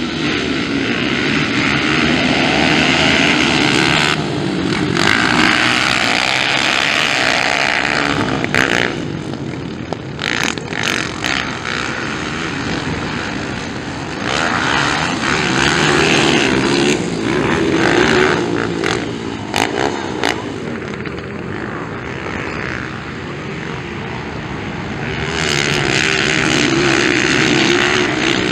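Several dirt bikes racing: their engines revving hard off the start gate, then rising and falling with throttle as they pass and jump.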